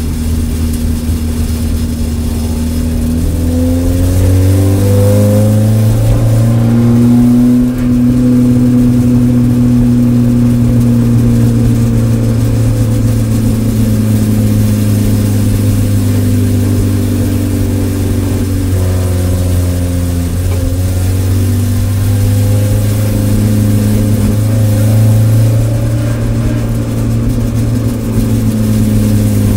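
Spec Miata's four-cylinder engine droning at low revs from inside the stripped race car's cabin while the car rolls slowly. The pitch climbs over the first few seconds, the sound dips briefly about seven seconds in, and then it holds steady.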